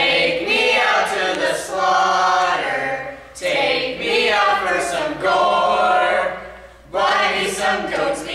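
Several voices singing together in long held notes, in three phrases with short breaks between.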